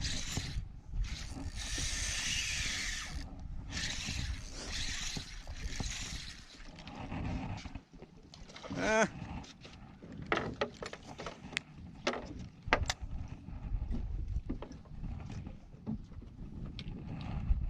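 Wind and water noise aboard a small fishing boat at sea. A hiss fills the first few seconds. A short wavering squeak comes about nine seconds in, followed by scattered sharp clicks.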